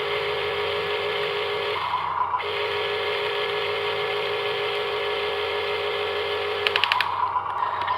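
Electric motor and gearbox of a radio-controlled construction model running with a steady whine. The whine shifts between a lower and a higher pitch a few times as the model works. A quick run of about five clicks comes near the end.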